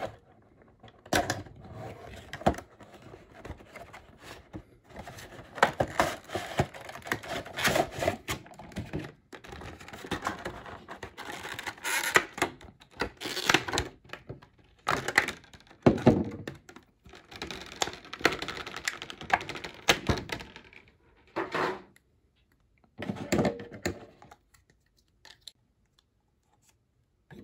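Funko Pop cardboard window box and its clear plastic insert being opened and handled: irregular rustling and crinkling with scattered sharp clicks and knocks, dying away near the end.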